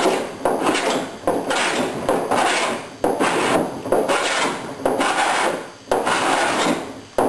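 Low-angle block plane shaving the edge of a wooden boat rail in repeated strokes, about one a second, each starting sharply and tailing off.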